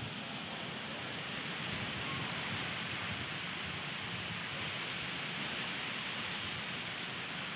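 Heavy rain falling steadily, an even hiss of the downpour.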